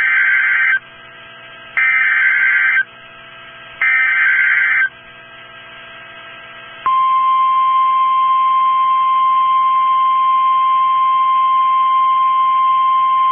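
Weather-radio alert signal: three buzzy bursts of SAME header data, each about a second long and about a second apart, then, about seven seconds in, the single steady 1050 Hz warning alarm tone comes on and holds. A faint hum lies underneath.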